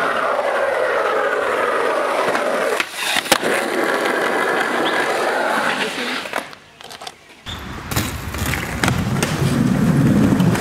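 Skateboard wheels rolling over rough asphalt with a steady, coarse rolling noise, and a sharp knock about three seconds in. Near seven seconds the sound drops away briefly, then skateboard wheels roll on a smooth ramp surface with a deeper, lower-pitched rolling sound.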